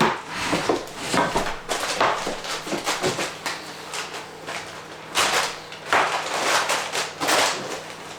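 Wooden floor planks being worked by hand: a run of short scraping, sliding strokes of wood on wood, in two bouts with a lull in the middle.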